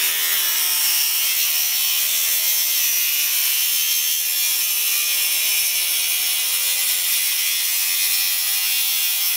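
Handheld electric circular saw running steadily as it rips lengthwise along a wooden board. The motor's pitch wavers slightly as the blade loads up in the cut.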